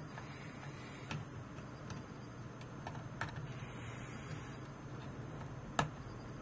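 Small wire cutters snipping and handling the trimmed heater lead ends at a circuit board's solder joints: scattered light clicks, with one sharper snap near the end, over a low steady hum.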